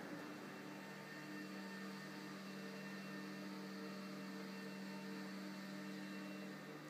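Electric drive motor of an Auto Hoop retractable basketball backboard humming steadily as it folds the backboard up into its wall cabinet.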